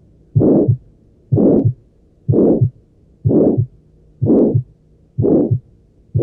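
Heart sounds of aortic stenosis heard through a stethoscope, beating regularly about once a second. In each beat, a harsh murmur swells and fades between the first and second heart sounds. This is the crescendo-decrescendo systolic ejection murmur of blood forced through a narrowed aortic valve.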